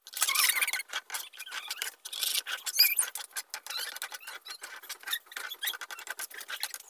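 Metal spoon scraping and clattering against a non-stick frying pan while stirring thick noodles: a fast, irregular run of clicks and scrapes with a few short squeaks.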